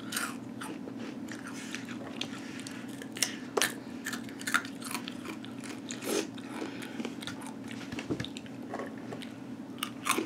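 Close-up crunching and chewing of spicy Takis Habanero rolled tortilla chips, with irregular sharp crunches all through. A steady low hum runs underneath.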